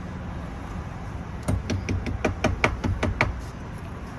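A quick run of about nine sharp clicks, roughly five a second, over a steady low hum: grit and debris rattling up into a handheld cordless car vacuum as it sucks them up.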